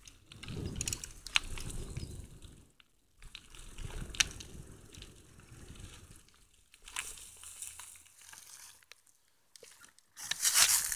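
Bicycle rolling over a forest dirt trail, its tyres crunching over dry leaves and ground, with a couple of sharp rattling clicks from the bike. A louder rush of rustling noise comes near the end.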